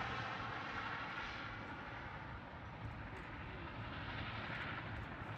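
Aircraft engine noise from an airplane flying past, a steady rush that slowly fades.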